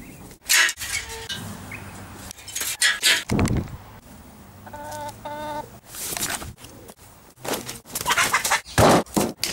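Domestic chickens clucking, with a quick run of four short clucks about five seconds in. Loud, sharp scuffling noises come and go around them.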